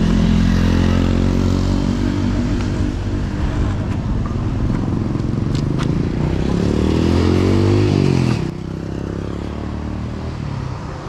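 A motorcycle engine running close by, rising in pitch as it revs up about seven seconds in, then the sound drops off abruptly. A single sharp click comes shortly before the rev.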